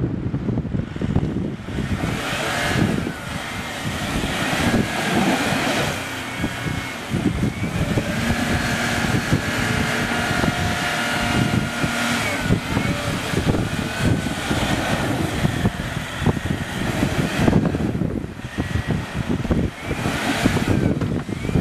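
Land Rover Discovery 3 driving through deep mud, its engine running under load as the tyres churn through the bog.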